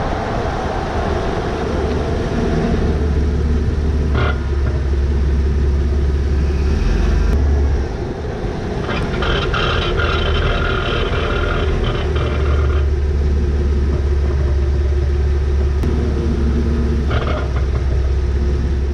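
Road and wind noise from a truck's front wheel while driving, a heavy low rumble throughout, with a harsh metallic grinding from the front brake that comes in briefly about 4 seconds in and strongly from about 9 to 13 seconds. The grinding is the brake fault the owner sets out to fix, which he places at the front driver's side.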